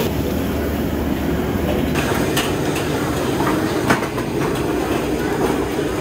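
Steady loud roar of a commercial kitchen's high-flame wok burner, with a few sharp metal clatters from about two seconds in as stir-fried food is tipped into a steel basin.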